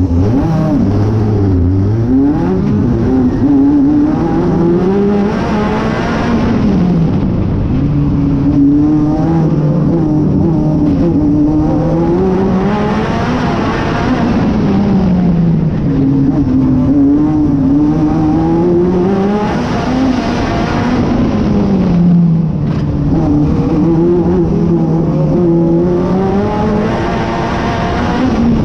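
Onboard sound of a National Hotrod oval race car's engine under racing load. The engine pitch climbs on each straight and drops as the driver lifts for each bend, in a cycle about every seven seconds.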